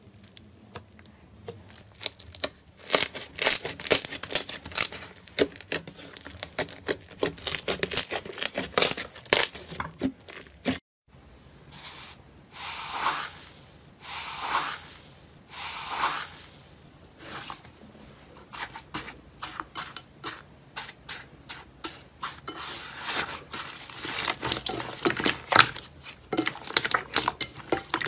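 Hands working slime: rapid sticky clicks and pops as glossy slime is stretched and squeezed. After a short break, three longer crackling swells as a palm presses into a dried-crust iceberg slime, then dense clicking and popping again.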